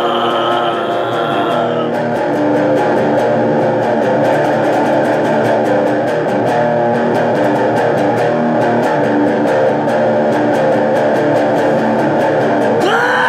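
Electric guitar playing an instrumental passage of a metal song: a held chord for about two seconds, then a moving riff over a steady beat.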